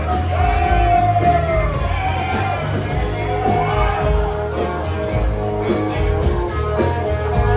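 A band playing with a singer: a sung melody over guitar, a heavy bass and a steady drum beat.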